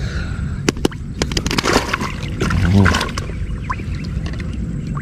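Caught snakeskin gourami being put into a water-filled keeper bucket: a run of sharp wet slaps and splashes about a second in, over a steady low rumble.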